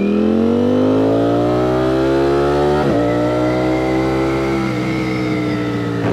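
Ducati Streetfighter V4S's 1103 cc V4 engine through a Termignoni slip-on exhaust, heard from the rider's seat as the bike accelerates. The engine note rises, drops briefly at a gear change about three seconds in and rises again, then changes once more near five seconds and eases slowly down.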